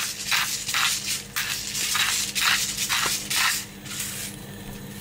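Pepper grinder grinding black pepper: a run of short, rhythmic grinding rasps, about two or three turns a second, stopping near the end.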